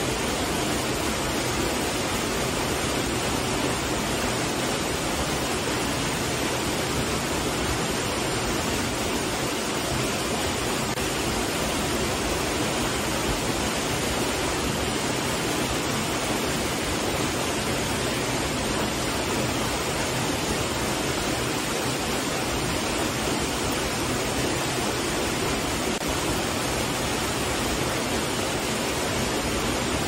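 Steady, even rush of a small waterfall pouring into a rock pool.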